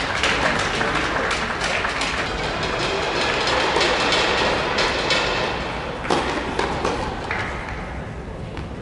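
Spectators applauding after a tennis point, a dense patter of clapping that fades out after about five or six seconds, followed by a few sharp knocks.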